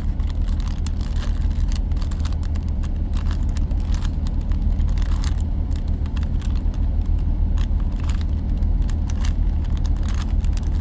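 Plastic Rubik's Cube being turned quickly, a rapid irregular run of clicks as the layers snap round, over a steady low rumble.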